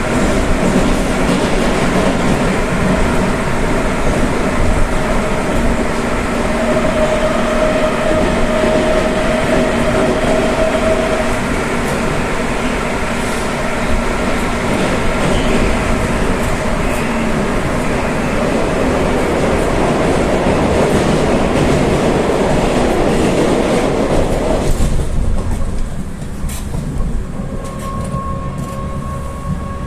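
Rusich metro train running between stations: a steady rumble of wheels on rail with the even whine of its asynchronous traction drive. About 25 seconds in the rumble falls away and a clearer, higher drive whine rises slowly in pitch.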